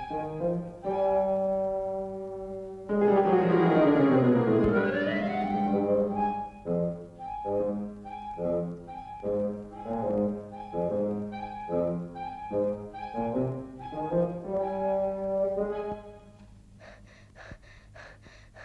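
Orchestral film score with brass: short, evenly spaced notes in a plodding rhythm, broken about three seconds in by a loud swelling run that falls in pitch. The music fades out near the end.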